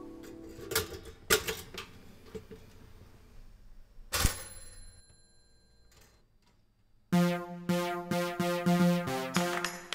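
Stainless-steel toaster's lever clicking down about a second in, then a single sharp metallic click with a brief ring about four seconds in. Synthesizer music with a steady drum-machine beat comes in loudly about seven seconds in.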